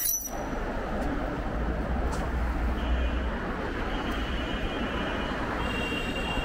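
Steady road-traffic and wind noise heard from a moving electric scooter. A thin high whine comes in about three seconds in and grows stronger near the end.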